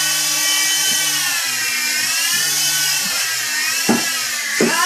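Small electric coaxial-rotor SKY WOLF RC helicopter hovering, its motors and rotors giving a high whine that rises and falls in pitch with the throttle. Two short knocks come near the end.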